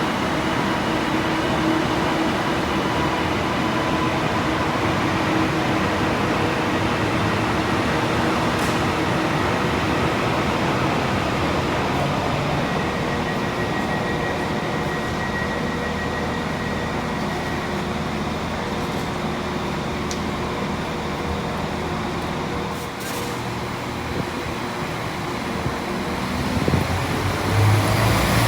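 A train at a station: a steady rumble with a hum and a few held tones, growing louder and rising in pitch near the end.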